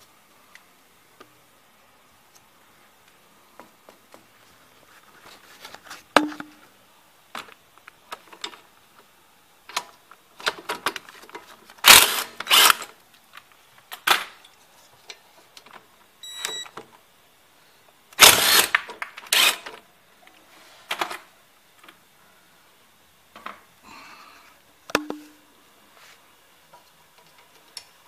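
Hand tools working the brake-hose and ABS-sensor bracket bolts on a Toyota Camry's front strut: scattered metal clicks and clinks, with two louder rattling bursts near the middle.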